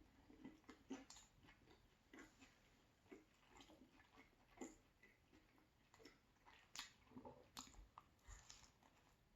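Someone chewing crunchy pizza crust: faint, irregular crunches and mouth clicks.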